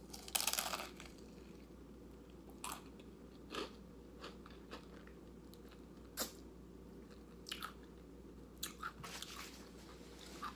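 A person biting into a crunchy tortilla chip with taco dip about half a second in, then chewing it with scattered soft crunches and mouth clicks.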